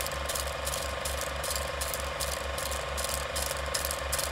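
Film projector sound effect: a steady, rapid, evenly repeating mechanical clatter of the film running through the gate.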